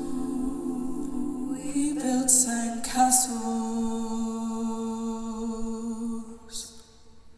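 Mixed a cappella ensemble holding the song's closing chord in close harmony. The voices shift to a new chord about two seconds in, with a few sung 's' sounds, then die away just before the end.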